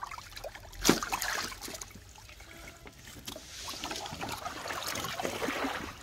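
Shallow water sloshing and splashing in a tarp-lined tank as a large fish is handled and moves in it, with one sharp slap about a second in.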